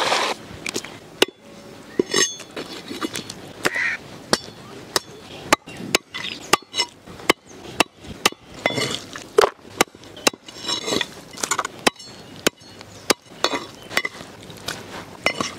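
Heavy meat cleaver chopping a country chicken into pieces on a wooden tree-stump block: a run of sharp chops, about two a second.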